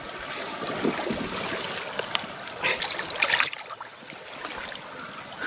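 Shallow river running over a stony bed, a steady hiss of moving water, with a short louder noise about three seconds in.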